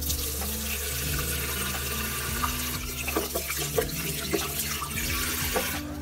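Tap water running in a steady stream onto raw rice in a rice cooker's inner pot, rinsing the grains. From about halfway there are scattered splashes and drips as the pot fills. The flow cuts off just before the end.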